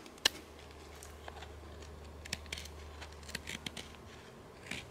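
Small knife blade shaving thin curls off a dry stick to make a feather stick: a series of short, faint scraping cuts, with a sharper click just after the start.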